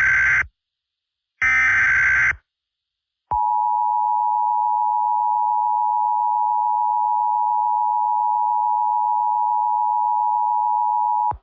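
Emergency Alert System tones: the tail of one digital header data burst and a second burst about a second long, then after a short gap the two-tone attention signal, a steady dual tone held for about eight seconds that cuts off suddenly.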